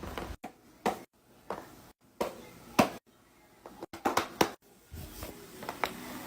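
A string of short, sharp taps and knocks, like small objects being handled and set down, broken up by sudden cut-offs.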